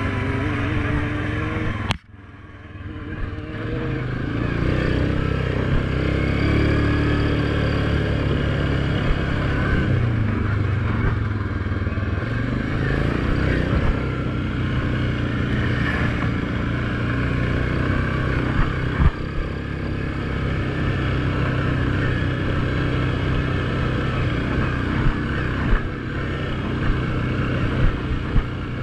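ATV engine running steadily under way on a dirt trail, with the rattle of the machine over the ground and a few sharp knocks. The sound drops out abruptly about two seconds in and fades back up over the next two seconds.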